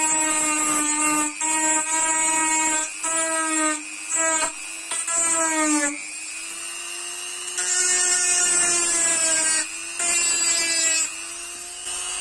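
Corded Ryobi rotary tool running with a lighter's flint-striker wheel as a burr, grinding into a plastic strip. The motor whines steadily, and the grinding grows louder in repeated short passes as the plastic is pressed on, with the pitch sagging slightly under the load.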